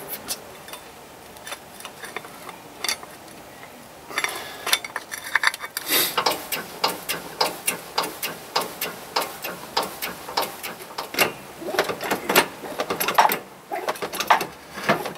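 Motorcycle drive chain on a rear sprocket clicking as the wheel is turned: a few scattered clicks at first, then about four seconds in a quick, fairly even run of sharp metal clicks that lasts almost to the end.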